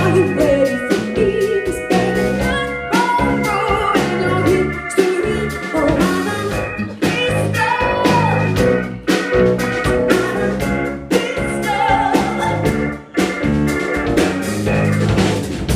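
Live band playing an instrumental stretch of an upbeat pop-funk song: drum kit and bass keeping a steady beat under a melodic lead line.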